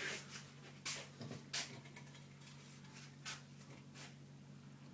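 A few faint, sharp clicks and taps of small scooter parts being handled, about a second in, again shortly after and once more near the three-second mark, over a steady low hum.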